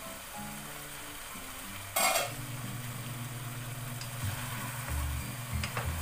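Chicken pieces sizzling in their own rendered fat in an uncovered pot and being stirred with a spatula, a sign that the fat has cooked out of the chicken. There is a short, loud burst about two seconds in.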